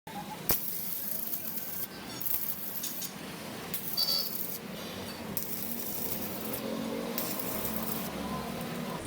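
Repeated bursts of hiss, each lasting about a second with short gaps between them, and a sharp click about half a second in.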